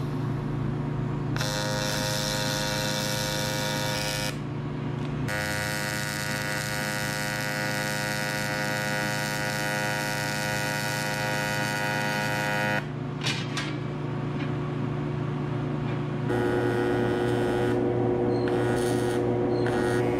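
AC TIG welding arc buzzing on aluminium section: a steady electrical buzz in stretches that start and stop, a few seconds at a time, over a constant hum.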